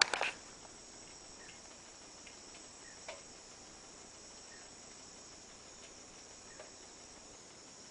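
Rainforest insect chorus: a steady, high-pitched drone of many insects, with a few faint short chirps. A brief sharp sound comes right at the start.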